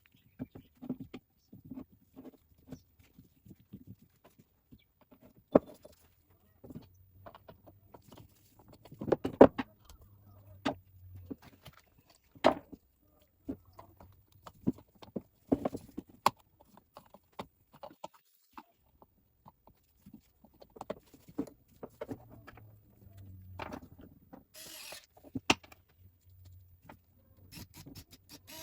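Irregular light clicks, taps and knocks as a drone sprayer's pump housing and tubes are worked by hand, with a short rustle near the end.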